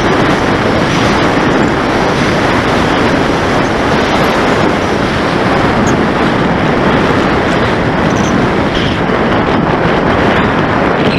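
Steady, loud rush of wind and propeller noise on the onboard camera of an electric FPV flying wing (850kv motor, 12x8 propeller) in low, fast flight, with no clear motor tone standing out.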